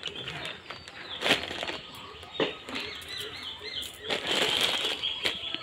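Small birds chirping steadily in the background, with a few sharp crackles and a rustle as dry cow dung is handled and crumbled.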